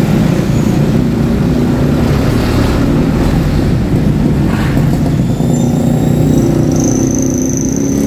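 Street traffic noise: engines of nearby motor vehicles running, a steady low rumble.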